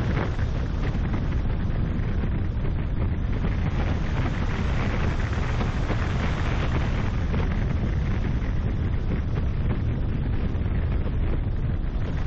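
Steady wind buffeting a car-mounted microphone, over the low rumble of the car driving along a tarmac road.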